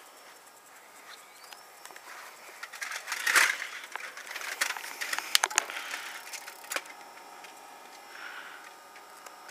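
Sharp clicks and a knock from the back of a Samsung DLP rear-projection TV as it tries to power on, then a faint steady electrical whine. The lamp is sparking but failing to light.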